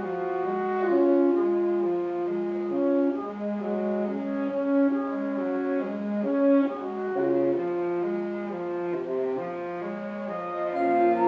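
High school concert band playing a slow passage of held, changing chords with the brass to the fore. More instruments come in and it grows louder near the end.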